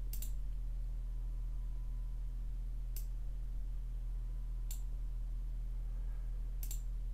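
Four computer mouse clicks, spaced a second or more apart, over a steady low hum.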